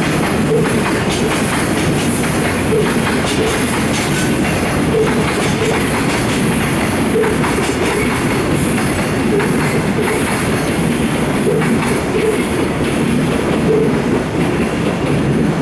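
Freight train of Koki container wagons rolling past at low speed, a steady rumble with the wheels clattering over the rail joints.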